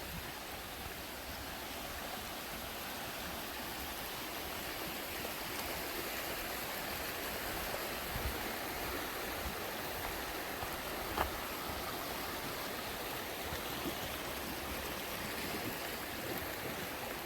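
River water flowing steadily, running high after heavy rain. One brief click about eleven seconds in.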